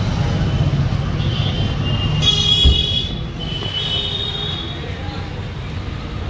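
Tata Nexon's engine idling with its reverse gear engaged, a low steady rumble. A high thin tone sounds over it for a few seconds, starting about a second in.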